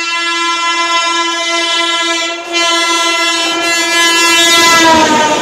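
Electric locomotive's horn sounding in two long, steady blasts with a short break between. Near the end the pitch drops as the locomotive passes, and the rumble of the train takes over.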